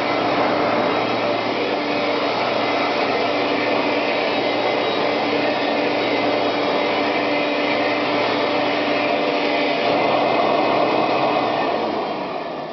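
Hoover Conquest 18-inch bagless vacuum cleaner running steadily at full power. Near the end it is switched off and its motor winds down.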